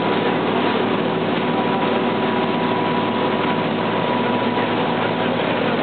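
Motorboat engine running steadily at speed, under the rush of water from the churning wake.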